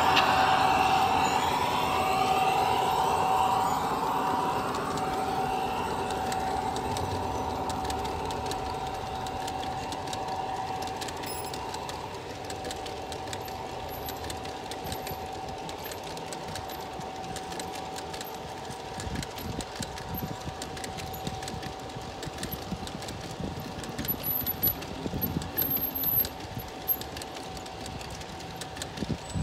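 A G-scale model freight train rolling past on garden track. The running sound of the model diesel locomotives, a steady whine, is loudest at first and fades as they pull away. The freight cars' wheels then keep up a light clatter on the rails, with a run of sharper clicks near the end.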